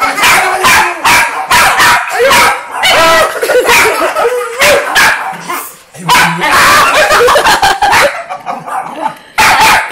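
Miniature pinscher barking and yapping in quick, sharp, repeated bursts as it snaps at a man's face, with a short pause a little after halfway.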